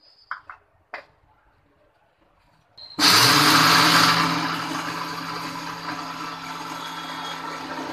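Electric mixer grinder with a steel jar starting up about three seconds in and running steadily, dry-grinding roasted chickpeas into powder; it is loudest just after it starts, then settles. A couple of light knocks come before it, as the jar is set in place.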